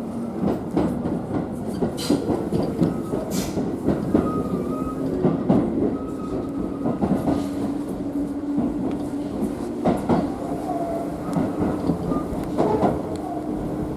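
Tobu Skytree Line commuter train running, heard from inside the car: wheels clicking irregularly over rail joints over a continuous rumble. A steady low hum runs through the middle of the stretch.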